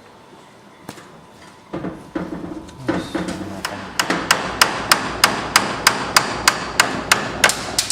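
A hammer tapping on metal: a few scattered knocks, then from about halfway a steady run of sharp strikes, about three a second.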